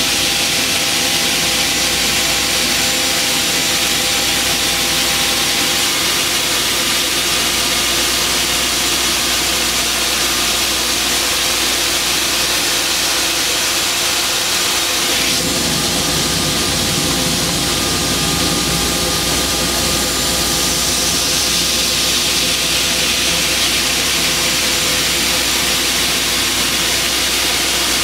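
Aslan US1-420 17-inch aluminum upcut saw running: its blade spins with a steady whir and strong hiss as it rises from under the table toward a clamped aluminum extrusion. About halfway through the sound shifts suddenly, gaining a lower hum, and a few seconds later the hiss grows brighter.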